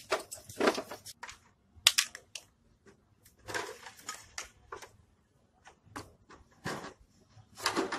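Plastic rear housing of a CRT computer monitor being worked loose and lifted off the chassis: scattered sharp plastic clicks and knocks, with a longer stretch of scraping a few seconds in.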